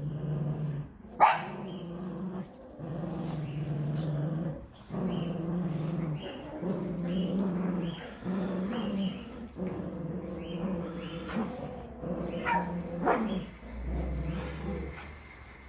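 Cavalier King Charles Spaniels growling in play over a toy, in an almost unbroken string of low growls, each about a second long. Three short sharp yaps come about a second in and twice near the end.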